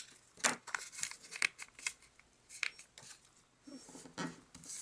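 A sheet of origami paper being folded by hand and its crease pressed down: a series of short, sharp paper crackles and rustles.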